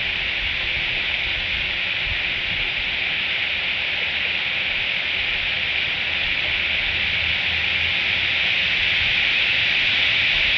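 Steady rain falling on the leaves and branches of the nest tree, an even hiss that grows slightly louder near the end.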